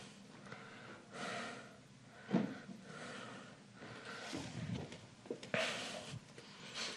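Quiet room with a few soft breaths or sniffs and a couple of light knocks.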